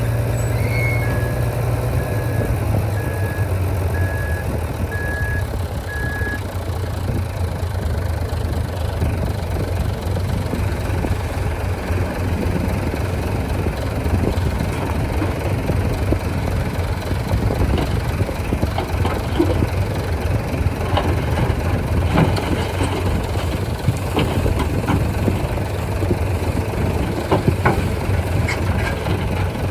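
Heavy diesel engine of earth-moving machinery running steadily, with a reversing alarm beeping about once a second for the first six seconds. Scattered clanks and knocks come in from about halfway through.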